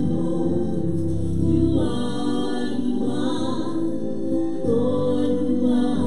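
Gospel worship music in church: voices singing over sustained chords.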